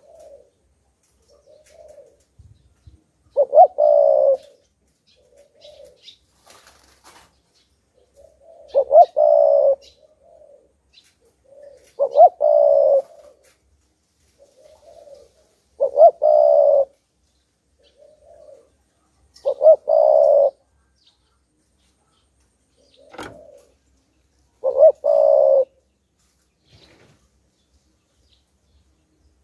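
Spotted dove cooing: its song phrase repeated six times, about every four seconds, each a quick double note and then a longer coo, with soft low coos in between.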